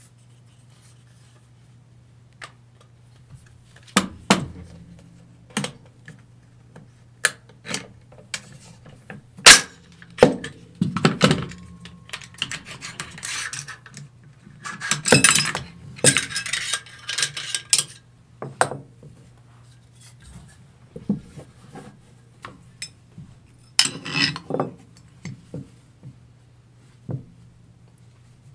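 Del-Ton AR-15 rifle being field-stripped by hand: scattered sharp metal clicks and clacks as parts are pushed, slid apart and set down. The loudest snap comes nearly ten seconds in, with bursts of rattling clatter a few seconds after it.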